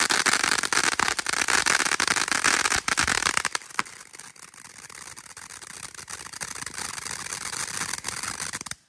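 Firework ground fountain spraying sparks, a loud hiss thick with fast crackling. About three and a half seconds in it drops off sharply to a quieter hiss with scattered crackles, then cuts off just before the end.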